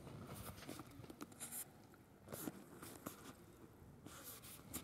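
Faint footsteps crunching on dry, dead grass, with scattered small clicks and rustles.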